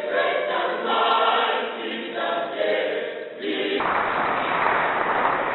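A mixed choir of student singers singing in a hall. About four seconds in it cuts off abruptly and gives way to a dense, even noise.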